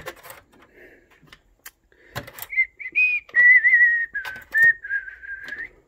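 A person whistling a short, wavering tune, starting about two seconds in. It follows a few light metal clicks and clinks from stainless hose clamps being handled on a rack.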